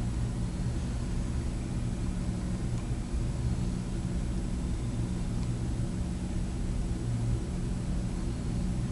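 A steady low hum with an even hiss beneath it that does not change: background noise of the room or the recording.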